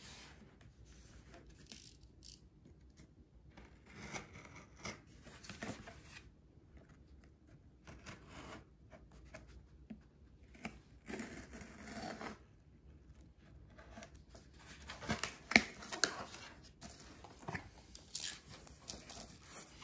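A cardboard parcel being opened by hand: packing tape torn and cut and cardboard flaps scraping, coming in several bursts of rustling with a few sharp clicks.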